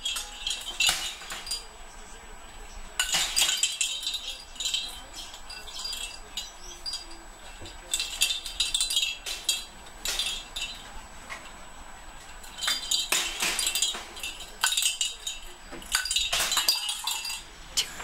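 Bell inside a parrot's plastic jingle ball toy jingling in short bursts every few seconds as an eclectus parrot pushes and tosses it about the cage floor, with sharp clicks and knocks among the jingles.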